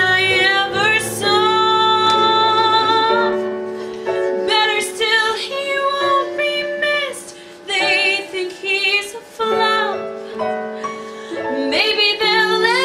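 Stage musical number: women's and children's voices singing over an instrumental backing, with phrases broken by short gaps and some long held notes.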